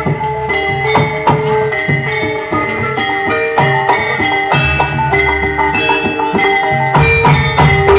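Javanese gamelan-style music played loud through a PA sound system being tested: struck metallophone notes at a steady pulse, with drums and heavy bass.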